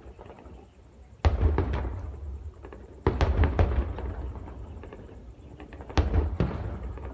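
Weapons fire from a military exercise: three loud booms, about a second in, about three seconds in and about six seconds in, each followed by a rolling echo and a few sharp cracks.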